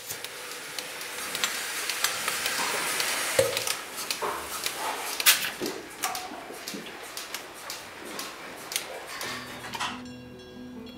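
Milking machine in a cow barn: a steady hiss with frequent metallic clinks and knocks as the milking unit and hoses are handled. Near the end this cuts off and soft music with low sustained notes comes in.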